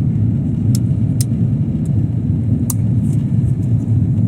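Airliner cabin noise: a steady low rumble of the jet engines and airflow, with three brief sharp clicks or rattles in the first three seconds.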